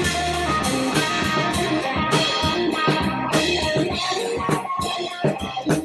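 Instrumental background music led by plucked guitar.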